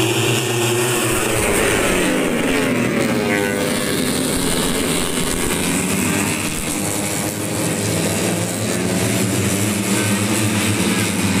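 A pack of 150cc four-stroke underbone racing motorcycles running hard at high revs as they pass. Several engines are heard at once, and their pitch bends down as the bikes go by about two to four seconds in.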